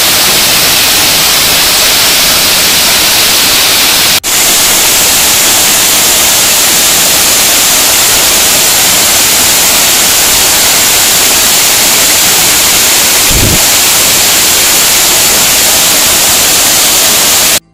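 Waterfall pouring close by: a loud, steady rush of falling water. It breaks off for an instant about four seconds in, and a short low thump comes about two-thirds of the way through. The sound cuts off suddenly at the end.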